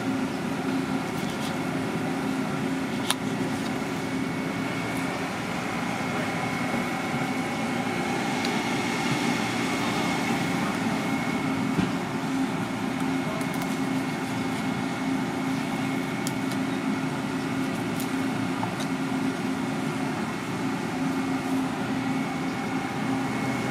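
A steady mechanical drone with several held tones, with a few sharp clicks.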